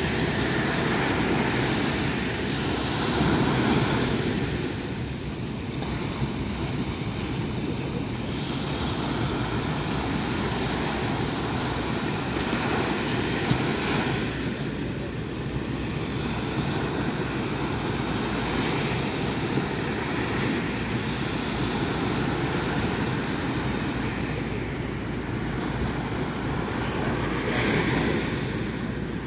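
Surf rushing and breaking, swelling every several seconds, with wind on the microphone and the steady drone of a ski-boat's twin outboard motors as it pushes out through the waves.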